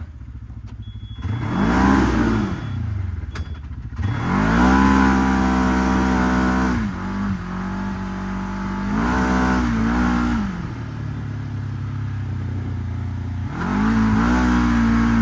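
Segway 1000 UTV engine revving up and easing off about four times, holding higher revs for a second or two each time and settling back to a lower steady speed in between.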